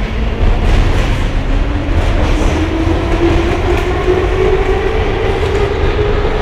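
Inside a Soviet-built 81-717-type metro car in motion: a heavy rumble of wheels on rail, with the traction motors' whine rising steadily in pitch as the train gathers speed.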